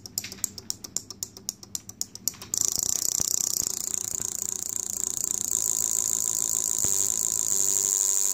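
Relays and 12 V solenoids of a model solenoid V8 clicking in sequence in a Chevy V8 firing order. The clicks come as a steady tick at first, and about two and a half seconds in they speed up into a fast, continuous chatter.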